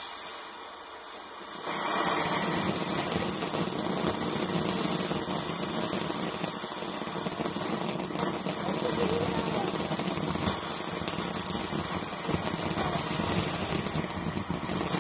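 Consumer firework fountain spraying sparks: a steady loud hiss with fine crackling, jumping much louder a little under two seconds in.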